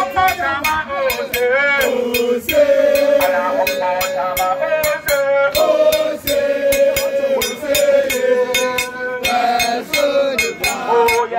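Singing in long held, sliding notes, kept in time by sharp rhythmic strikes several times a second.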